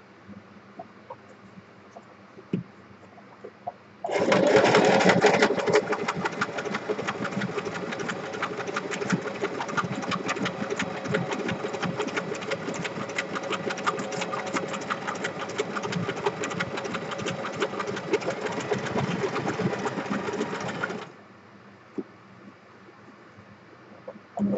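Electric sewing machine stitching through a paper bookmark, starting about four seconds in with a fast, steady run of needle strokes, loudest at the start, and stopping suddenly a few seconds before the end.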